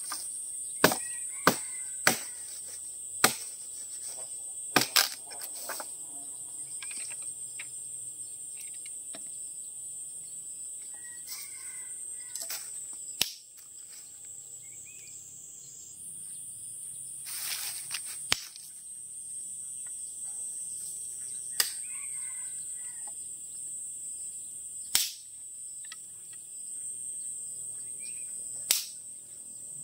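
Steady high-pitched insect chorus, with sharp knocks or cracks every few seconds, several close together near the start.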